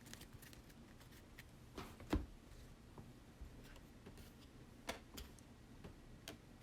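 Faint handling noises of trading cards being sorted on a table: a few light clicks and taps, the loudest a knock about two seconds in and another about five seconds in.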